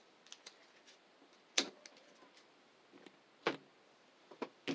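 Sleeved trading cards and a card deck being tapped and set down on a table and playmat: a few short, sharp taps, the loudest about a second and a half in.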